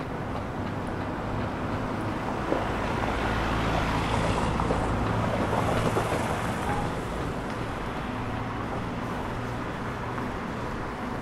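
A car driving past close by on a city street, growing louder and fading over a few seconds around the middle, over steady traffic noise.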